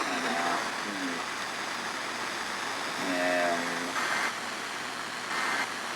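Steady hiss with faint snatches of a voice, briefly near the start and again about three seconds in.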